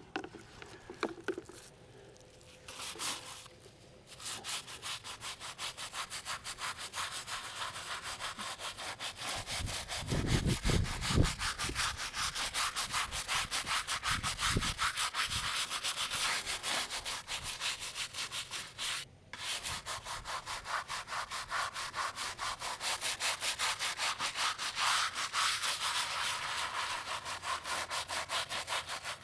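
A bristle brush scrubbing a stone headstone in quick back-and-forth strokes. It lifts the buildup loosened by the headstone cleaner. The scrubbing starts a few seconds in and stops once, briefly, about two-thirds of the way through, with a few low thumps about a third of the way in.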